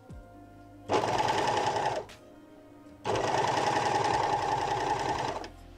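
W6 454 overlock (serger) running as it stitches a seam through fabric. It runs in two bursts: about a second, a pause, then about two seconds more.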